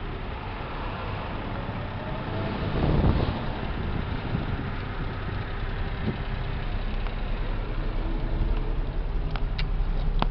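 Honda Acty kei truck's small three-cylinder engine idling with a steady low hum. There is a louder rush about three seconds in and a few sharp clicks near the end.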